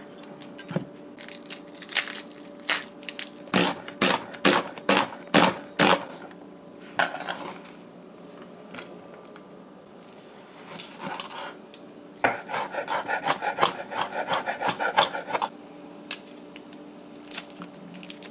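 Kitchen knife cutting onion on a wooden cutting board: sharp separate knocks for the first six seconds, then quieter rubbing and handling, then a fast run of chopping about twelve seconds in, lasting some three seconds. A faint steady hum sits underneath.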